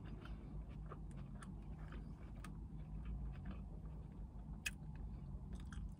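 A person chewing a mouthful of soft Big Mac with mouth closed, with small irregular wet mouth clicks over a low steady hum.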